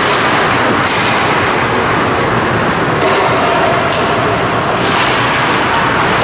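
Ice hockey play heard from the stands: a steady, loud rink din with a few sharp scrapes and hits of skates and sticks on the ice.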